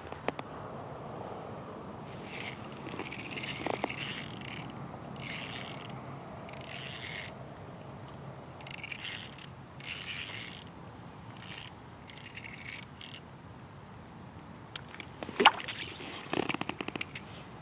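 Small spinning reel cranked in about nine short spurts, its gears whirring with a high whine, as a bluegill is reeled up through the ice hole. Near the end a few sharp knocks as the landed bluegill flops on the ice.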